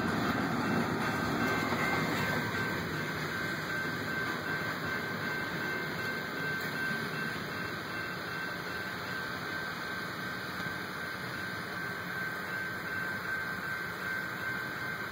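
Freight train of container and gondola cars rolling past at close range: the noise of wheels on rail grows quieter over the first several seconds as the end of the train goes by. A steady high tone sounds alongside.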